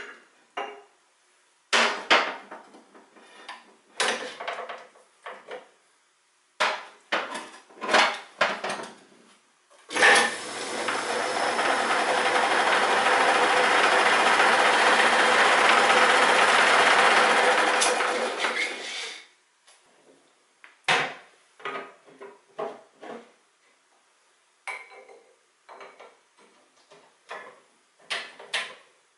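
Metal clanks and clicks as the two speed levers of a 1940 Sheldon 11-inch lathe's U-type underdrive are shifted into high gear. About ten seconds in, the lathe starts with a knock and its motor, belts and pulleys run steadily at the top underdrive speed for about eight seconds before winding down. More clanks follow as the cast pedestal door is closed.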